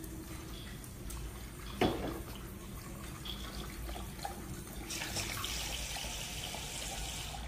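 A Shar Pei dog lapping water from a plastic gravity-fed water dispenser bowl, wet splashing that gets louder and busier about five seconds in. One short louder knock about two seconds in.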